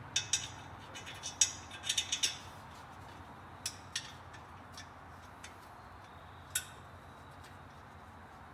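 Light metal clinks and clicks from hand work on the exhaust header of a small-block Chevrolet engine: a quick cluster in the first couple of seconds, then a few single clicks spaced out.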